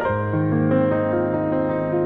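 Piano music, notes struck one after another and held so that they ring over each other.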